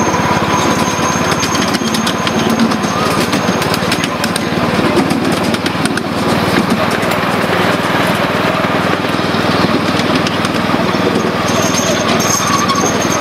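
Ride-on miniature steam-style park train running steadily along its track: a small engine's constant drone with dense, rapid clicking.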